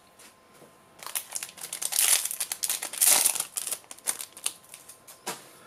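Foil Yu-Gi-Oh booster pack wrapper crinkling in a run of irregular crackles as it is handled and opened and the cards are slid out.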